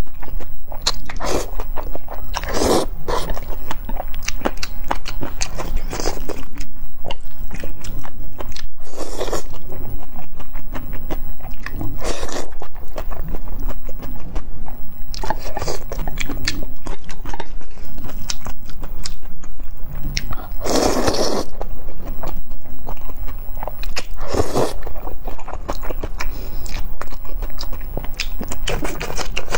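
Close-miked eating sounds of a person eating noodles with chopsticks: wet chewing and smacking with many small mouth clicks, broken by several longer slurps of noodles.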